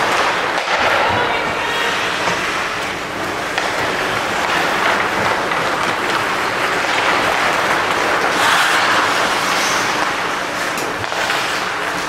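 Ice hockey rink din: a steady wash of crowd and play noise that swells about eight seconds in, with a few sharp knocks.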